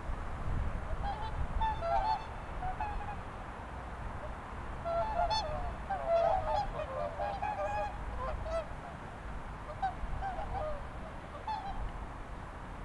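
Waterfowl calling: many short, repeated calls in clusters, busiest in the middle stretch.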